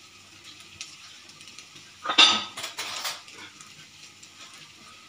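Kitchen utensils clattering against cookware: one sharp clink about two seconds in, followed by a few lighter clinks, over a quiet background.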